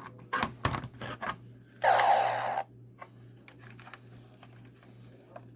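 A few plastic clicks from handling a toy blaster pistol, then about two seconds in its speaker plays a short electronic firing sound effect, a sweeping tone lasting under a second.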